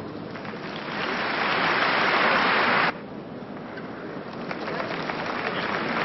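Large crowd applauding, swelling to a peak and then cut off sharply just under three seconds in. The applause resumes more quietly and builds again toward the end.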